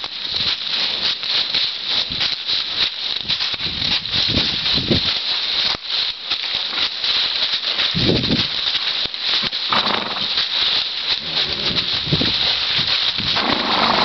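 Steady crunching and rustling of steps through dry fallen leaves, a continuous dense crackle with a few short low swells.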